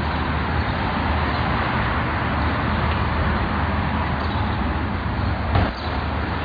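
Steady outdoor noise haze with a low rumble beneath it, and one brief knock about five and a half seconds in.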